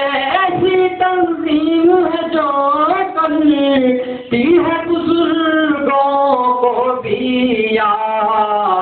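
A solo voice singing a long, wavering melody of an Urdu anthem-style song in praise of the Muslim Students Organisation, with a short break for breath about four seconds in.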